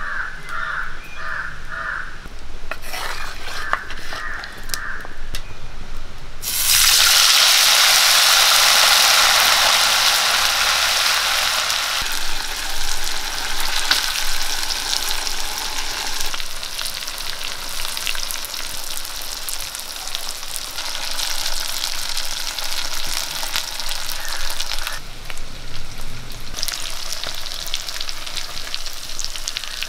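Marinated anchovies sizzling as they deep-fry in hot oil in a kadai, with a wooden spatula stirring them. The sizzling starts suddenly about six seconds in and is loudest over the next few seconds as the fish go into the oil, then keeps crackling and bubbling.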